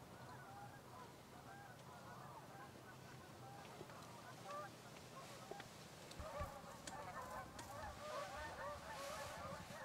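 A flock of geese honking, faint, with many overlapping calls that grow denser and louder about six seconds in.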